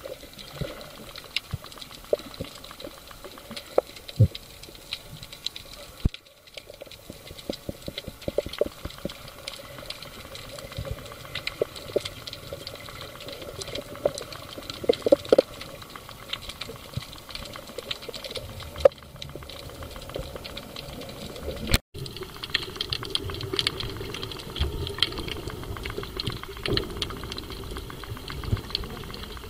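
Ambient sound recorded underwater over a rocky reef: a dense, irregular crackle of small clicks and pops. After a cut about two-thirds of the way in, a low bubbling wash joins it as a diver exhales.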